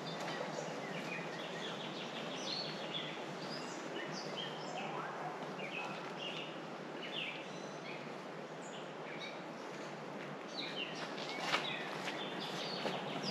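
Birds chirping in short repeated calls over a steady outdoor hiss, with one sharp click near the end.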